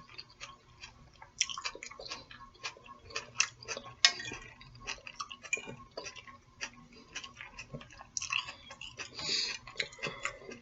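A person chewing food close to the microphone: irregular wet mouth clicks and smacks, several a second.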